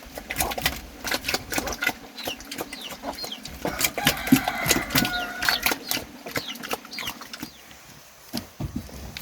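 Chickens clucking amid a clatter of sharp knocks, with a burst of louder calls about halfway through.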